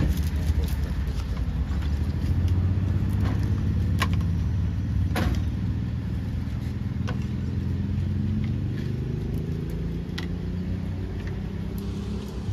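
Steady low hum of a running engine, with a few sharp clicks and knocks, the clearest about four and five seconds in.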